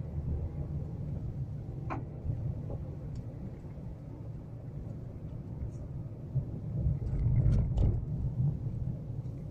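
Car driving at low speed, heard from inside the cabin: a steady low rumble of engine and tyres, louder for a moment about seven seconds in.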